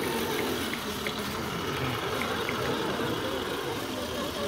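Engine running sound from a 1:14.5 RC Mercedes-Benz Actros 4x4 tipper truck as it drives off, a steady low truck-engine drone with a few faint small clicks.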